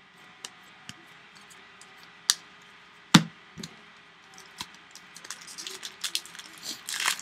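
Trading cards being handled, with scattered light clicks and two sharper snaps in the first half, then a foil card-pack wrapper crinkling as it is torn open from about five seconds in.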